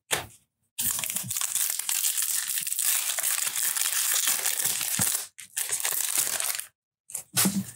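Foil wrapper of a trading-card pack crinkling as it is handled and opened by hand, a continuous crackle lasting about six seconds, with a short extra burst near the end.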